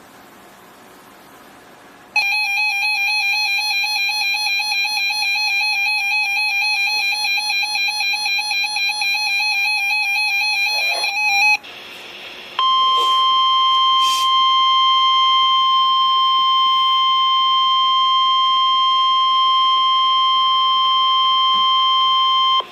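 A warbling electronic alarm tone for about nine seconds, then, after a brief break, the NOAA Weather Radio warning alarm tone: a single steady 1050 Hz tone held for about ten seconds, sounded as the test of the warning device.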